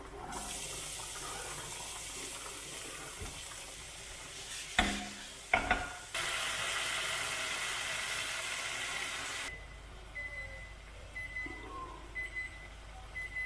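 Chopped onion and sausage sizzling in hot oil in a frying pan. About five seconds in there are two sharp knocks of the spatula against the pan, and the sizzle dies down after about nine and a half seconds.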